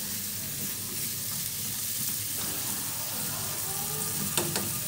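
Duck meat, lemongrass and chillies sizzling steadily in a non-stick frying pan as they are stir-fried and turned with wooden chopsticks. Two sharp clicks come near the end.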